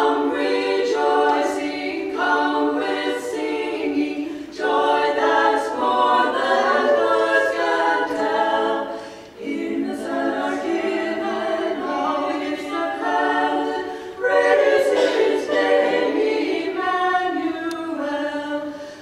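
A women's vocal quartet singing a cappella in close harmony: long held notes in phrases, with short breaks between them every few seconds.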